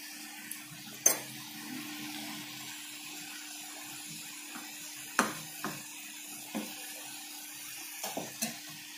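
Spatula knocking and scraping against a wok-style pan while stirring a bubbling curry, with scattered sharp clanks: the loudest about a second in, a few more around five to six and a half seconds, and a quick cluster of three near the end. A steady low hum runs underneath.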